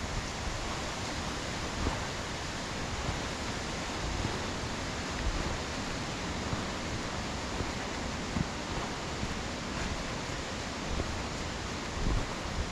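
Steady rush of a waterfall, with a few low wind buffets on the microphone near the end.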